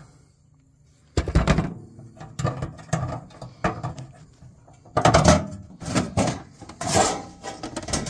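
A quiet second, then a run of irregular knocks and clunks.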